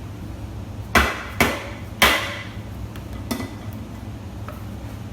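Hammer blows on metal parts of a Ford 4R75E transmission during teardown: three sharp strikes about a second in, the third a little over half a second after the second, each with a brief metallic ring, then a lighter knock near the middle.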